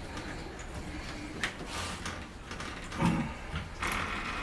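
Old locking doorknob being worked loose and pulled out of the door: scattered metal clicks and rattles, with a heavier knock about three seconds in and a short scrape just after.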